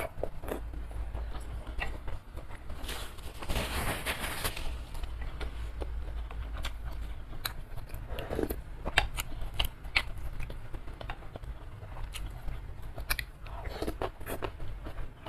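Close-miked chewing of spicy curry instant-noodle soup with tofu: many short wet mouth clicks and smacks. There are sips from a spoon, and a slurp of noodles near the end.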